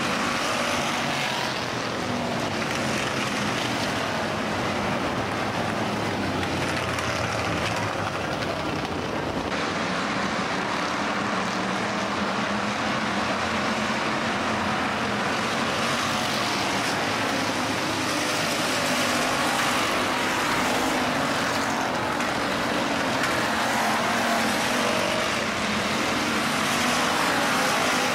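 A field of IMCA Hobby Stock race cars running around a dirt oval, their V8 engines making a continuous, blended drone that swells and fades a little as the cars pass.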